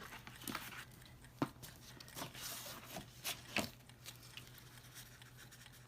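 Paper and cardstock being handled on a work table: a few light taps and clicks with a soft rustle.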